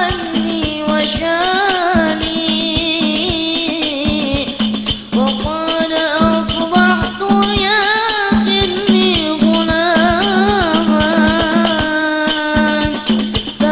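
A boy singing a sholawat, an Islamic devotional song, in a wavering, ornamented melody, over a hadrah ensemble of frame drums beating a steady rhythm.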